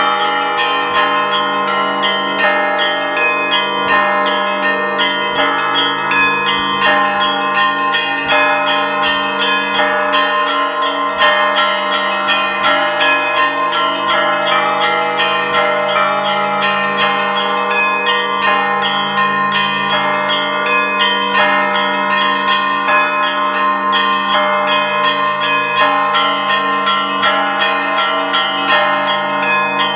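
Russian Orthodox church bells rung together in a continuous peal (zvon): rapid strikes of smaller bells over the sustained hum of the larger bells.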